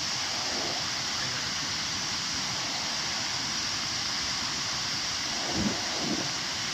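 Nuranang Waterfall's water pouring down, a steady rushing hiss, with a brief low bump about five and a half seconds in.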